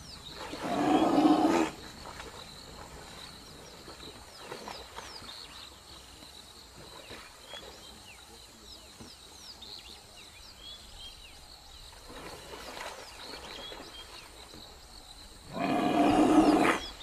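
Lions growling twice in loud bursts of about a second and a half, one just after the start and one near the end. Faint high chirps come in between.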